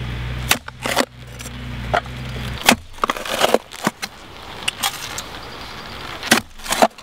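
Scattered sharp knocks and scrapes, over a low steady rumble that fades out about two and a half seconds in.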